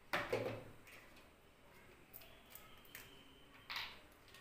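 Quiet kitchen handling noises as ingredients and utensils are moved about beside a steel plate: a soft knock at the start and a brief scrape or rustle near the end.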